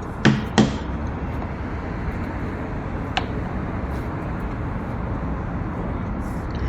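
Steady city street traffic noise with a continuous low rumble, and two short sharp sounds about half a second in.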